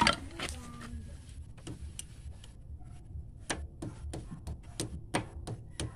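Sharp metallic clicks and ticks, about a dozen at uneven spacing, as a hand tool works a screw into the oil seal on a Honda motorcycle engine's side cover. The loudest click comes right at the start, and they come faster in the second half.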